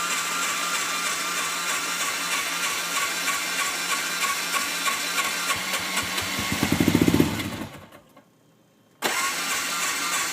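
Polaris RZR side-by-side being cranked on its starter, a steady whirring with fast even ticks, in a hard start. About six seconds in the engine fires and chugs louder for a moment, then dies away; a second later the starter cranks again.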